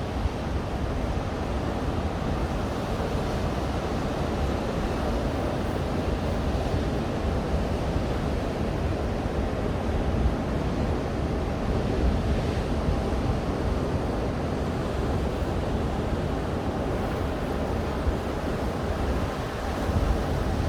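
Atlantic surf breaking on a beach: a continuous rush of waves with a heavy low rumble.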